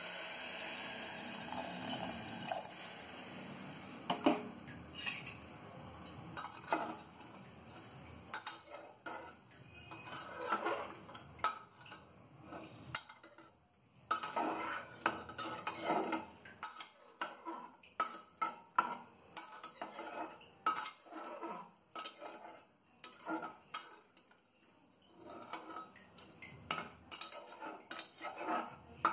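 Water poured into a pressure cooker full of chicken and vegetables, then a metal ladle stirring the stew, scraping and clinking irregularly against the inside of the pot.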